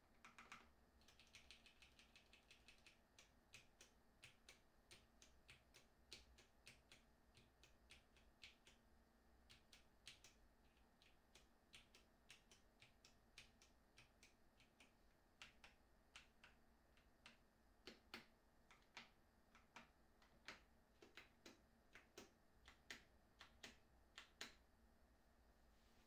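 Faint keystrokes on a Ducky 60% mechanical keyboard: a quick run of rapid presses in the first few seconds, then single key presses and releases at about two a second, a few louder ones near the end.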